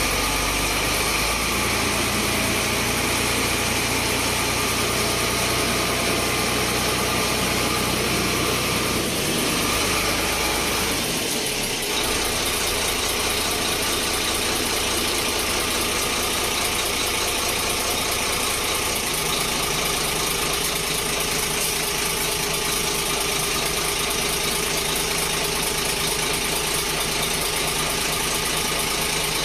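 Foton dump truck's diesel engine running steadily while the hydraulic hoist is worked to raise and lower the dump box in a test. The engine's note changes around ten seconds in and again around nineteen seconds in.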